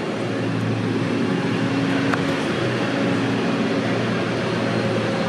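Steady low mechanical drone of a running engine, holding an even hum with no breaks.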